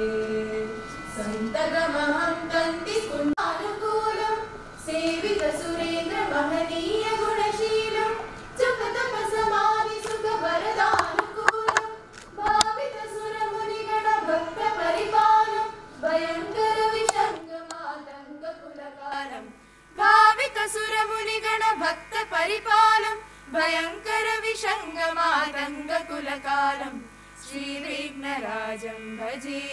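Women singing a devotional invocation hymn to the goddess Saraswati into a microphone, a slow melodic line with held notes, broken by a short pause about two-thirds of the way through.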